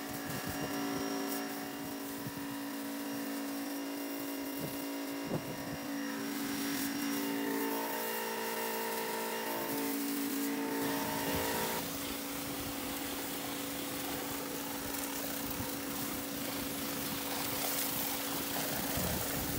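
Electric pressure washer running, its motor and pump giving a steady hum while the water jet hisses against wooden fence boards. The hum shifts in pitch for several seconds around the middle.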